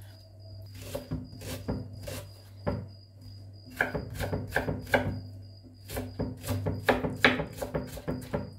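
Knife chopping an onion into small pieces: a series of sharp, irregular cuts, a few spaced strokes at first, then quick runs of them in the second half.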